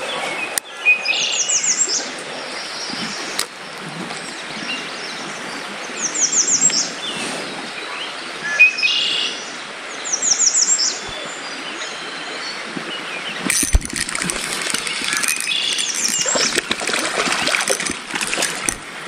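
Songbirds singing, one bird repeating a short phrase of quick high descending notes every four to five seconds, with other chirps in between. From about two-thirds of the way in, close rustling and knocks of handling and movement join in.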